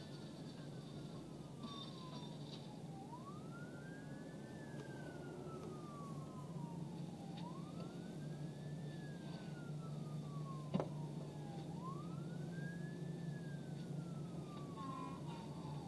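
Emergency-vehicle siren on a slow wail, each cycle rising quickly and then falling slowly, about every four seconds, over a steady low hum. One sharp click about two-thirds of the way through.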